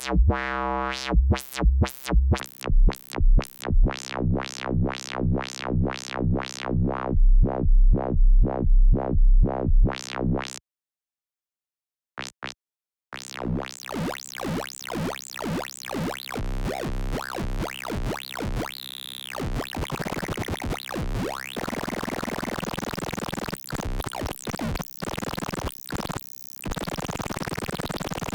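Synthesized square-wave bass through a resonant bandpass filter, giving a squelchy 'wow wow wow' sound that pulses two to three times a second. It stops briefly about ten seconds in, then comes back denser, noisier and harsher.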